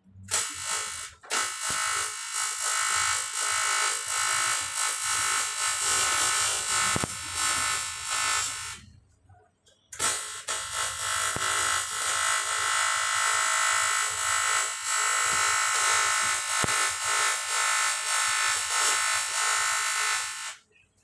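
TIG welding arc buzzing steadily while a cast water jacket is welded, in two runs: the first breaks briefly about a second in and stops about nine seconds in; the second starts about a second later and runs until just before the end.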